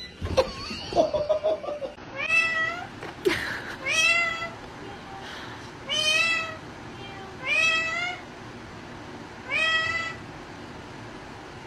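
Blue Indian ringneck parakeet mimicking a cat: five meow-like calls, each rising in pitch, about one every two seconds. A few short knocks come first, in the opening two seconds.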